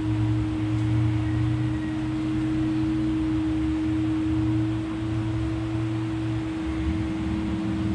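Ambient background music: a steady low drone with a held higher tone above it, unchanging.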